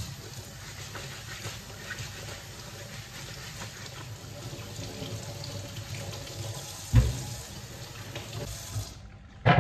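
Kitchen tap running into a stainless steel sink as potatoes are rinsed under the stream. There is one loud knock about seven seconds in, and the water cuts off suddenly near the end.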